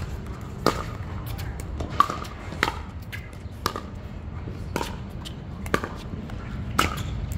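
Pickleball rally: the hollow plastic ball pops sharply off paddles and the hard court, seven strikes about a second apart, the loudest about two seconds in. A steady low rumble runs underneath.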